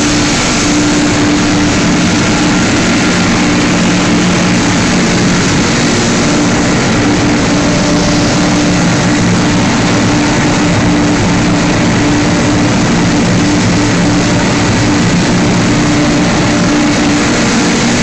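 Machinery of a PE film washing and recycling line running: a loud, steady din with a constant low hum.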